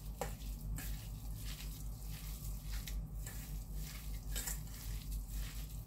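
A hand squeezing and kneading raw minced beef with seasoning and cornstarch in a stainless steel bowl: soft, irregular wet squishes and smacks.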